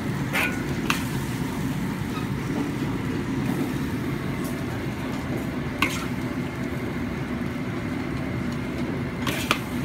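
Steady low rumble of kitchen cooking noise, with a few sharp clinks of serving utensils against dishes as the cooked pork is plated: two near the start, one about halfway and one near the end.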